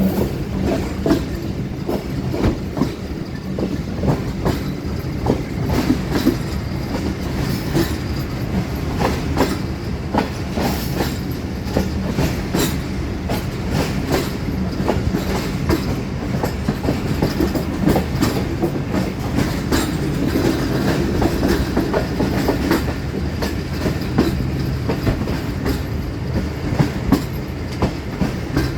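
Passenger train departing a station, its coaches rolling past with a steady rumble and a dense, irregular clatter of wheels over rail joints.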